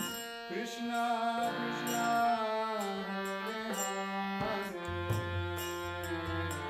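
Harmonium playing sustained chords under a man's solo singing voice, a sliding lead line of a kirtan chant, with light regular percussion ticks. The deep bass notes drop out for the first few seconds and come back in partway through.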